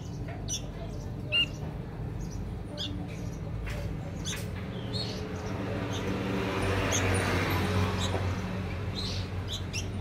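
Young sooty-headed bulbuls giving short, scattered chirps and squawks, over a steady low hum. A broad rushing noise swells and fades in the second half and is the loudest thing heard.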